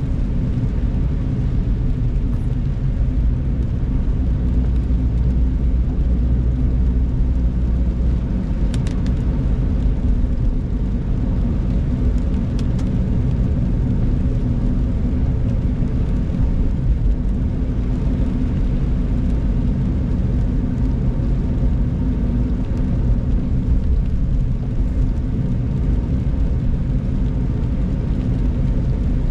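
Steady low rumble of a car driving on a rain-soaked road, heard from inside the cabin: engine and tyre noise. A few brief clicks come about nine and twelve seconds in.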